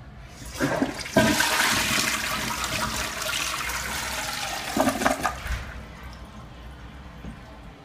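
TOTO Aquia III dual-flush toilet flushing: a rush of water starts about half a second in and runs for about five seconds, with a burst of gurgling near the end as the siphon breaks, then it dies away.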